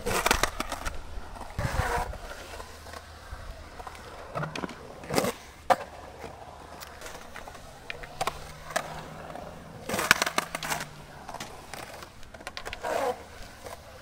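Skateboard wheels rolling over the concrete of a pool-style bowl. Sharp clacks and scrapes of the board and trucks come at the start, twice around five to six seconds in, and in a cluster around ten seconds in.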